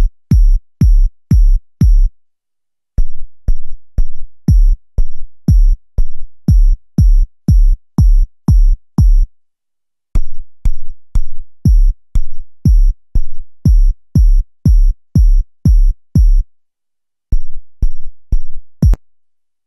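Synthesized EDM kick drum from the Kick One kick synthesizer plugin, 'EDM Soft Core' preset, struck over and over at about two hits a second in runs with short breaks. Each hit is a deep thud with a short high tick on top.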